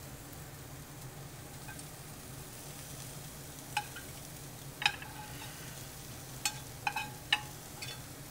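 A metal spoon scraping and clinking against a stainless-steel skillet as caramelized onions are spooned out of it, with about six sharp clinks in the second half. Under it, a steady sizzle of meat frying in a pan.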